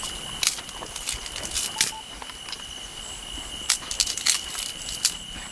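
Dry twigs and leaf litter crackling and snapping in irregular sharp cracks as sticks are handled and piled for a campfire. Insects trill steadily underneath, one on a single high note and another pulsing faster and higher.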